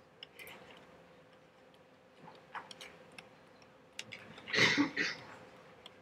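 Stylus pen tapping and scratching on a tablet screen while handwriting, heard as scattered faint clicks over a faint steady hum. A brief, louder noisy sound comes about four and a half seconds in.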